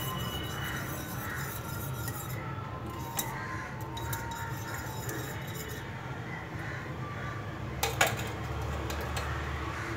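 Metal spoon stirring and scraping a thickened milk and cornflour cream in a steel saucepan. A sharp metallic clink comes about eight seconds in.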